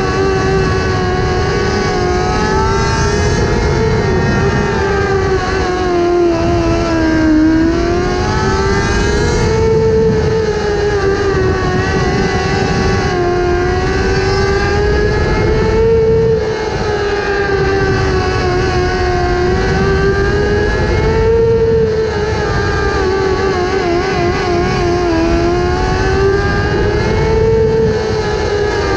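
Winged 600cc micro sprint car's motorcycle engine running at high revs, heard from the cockpit. The pitch rises and dips every few seconds as the car goes around the dirt oval, over a steady rush of wind and dirt noise.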